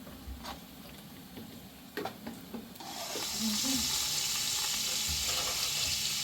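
A few light clicks and knocks, then about three seconds in a steady hiss sets in and holds.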